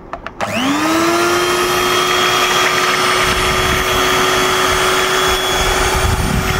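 Electric hand mixer switched on about half a second in, after a few handling clicks: its motor whines up to speed and then runs at a steady pitch as the beaters whisk cocoa powder into hot chocolate in a saucepan.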